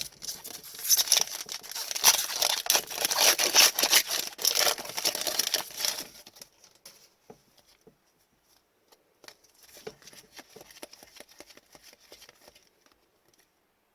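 Foil wrapper of a trading-card pack crinkling and tearing for several seconds, then softer scattered clicks of cards being handled.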